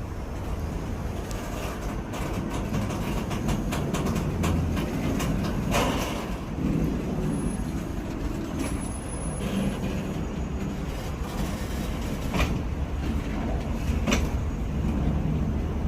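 Freight train of oil tank wagons rolling past at close range: a steady low running noise full of clicks and knocks from the wheels on the rails, with a few sharper knocks along the way.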